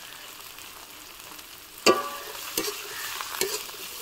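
Onion, garlic, chilli and chopped tomato frying in oil in a black kadai, with a steady sizzle. A metal spatula clangs against the pan about two seconds in, followed by a few lighter stirring knocks.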